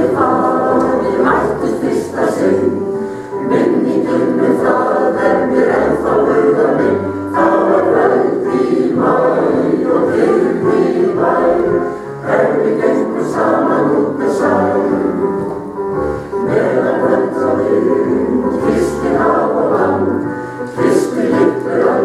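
Mixed choir of men's and women's voices singing together, accompanied by an electric piano.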